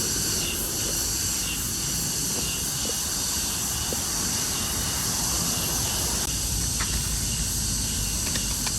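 Steady outdoor ambience: a constant high hiss over a low rumble, with no distinct event standing out.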